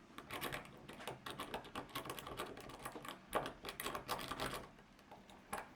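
Multipick 'Abona' rake pick raked in and out over the pin tumblers of a small padlock held under tension, making many quick, irregular metal clicks.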